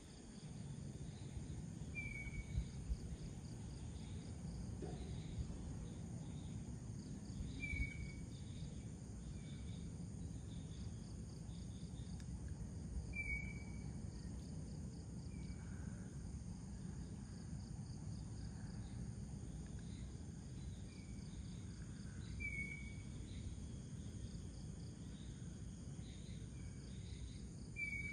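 Pre-dawn chorus of crickets and other insects trilling steadily. A short high call repeats about every five to six seconds over a faint low rumble.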